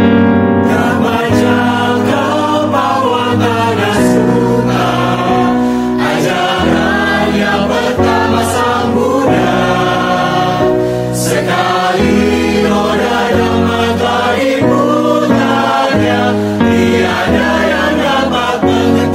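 Mixed choir of men and women singing a Buddhist devotional Dhamma song, holding long chords that change every second or two.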